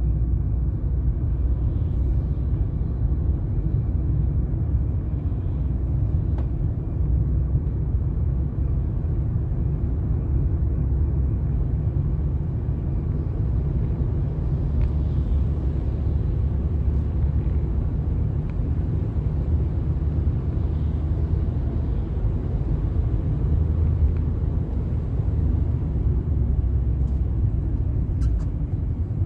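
A car driving along at a steady pace, heard from inside the cabin: a constant low rumble of engine and road noise.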